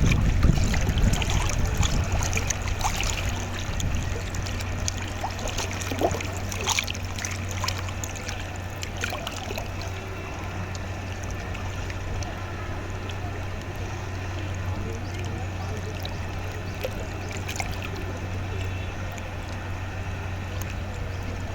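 Water of the Ganges river flowing and lapping, a steady wash with scattered faint ticks and a constant low hum underneath. Wind rumbles on the microphone at the start and dies away within about two seconds.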